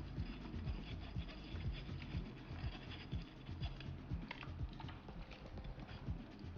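Spoon scraping and knocking in a sieve as blended fruit pulp is pressed through to strain out the juice: soft, irregular knocks with some scratching.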